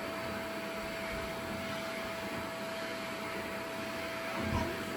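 HiCOZY pet grooming vacuum running steadily while it deshes a malamute's coat: an even rushing hum with one constant whine.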